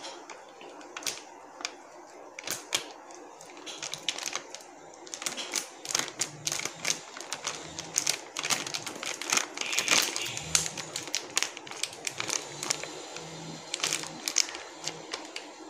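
Quick, irregular clicks and taps of kitchen utensils against a bowl or container as flour is spooned in.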